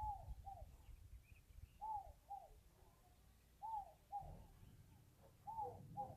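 A bird calling a repeated two-note phrase, four times, about every two seconds, over faint low rumbling noise.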